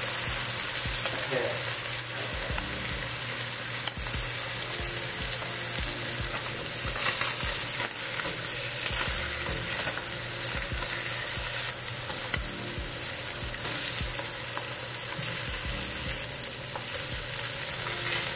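Tilapia and swai fillets frying in oil in a pan: a steady sizzle with faint small crackles.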